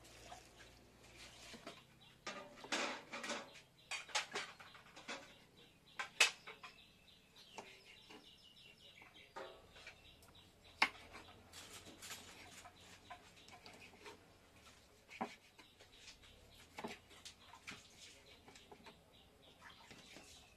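Chickens clucking, with sharp knocks of a knife on a wooden cutting board as cooked chicken is chopped; the two loudest knocks come about six and eleven seconds in.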